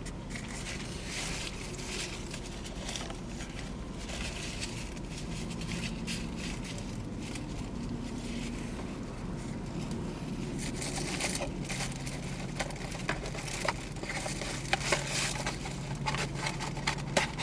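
A person chewing a chopped cheese sandwich, with the wrapper crinkling and rustling over a steady low hum. Sharper clicks and taps come more often in the second half.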